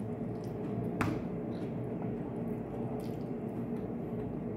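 Eating sounds: a few light clicks of a utensil against the dish, one sharper click about a second in, with soft wet food noises over a steady low hum.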